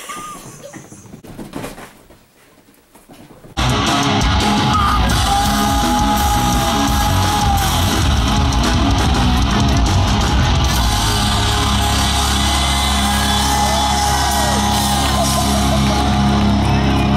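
A few seconds of low sound, then loud live rock music cuts in abruptly about three and a half seconds in: distorted electric guitars with a singer yelling over them.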